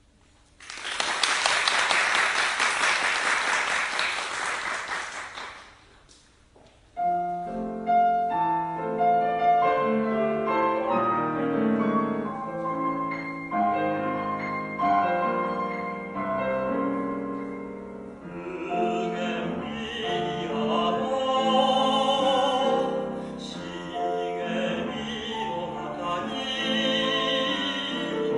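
About five seconds of steady rushing noise that fades out, then, after a short gap, a piano playing sustained chords and melody. About eighteen seconds in, a singing voice with strong vibrato comes in over the piano.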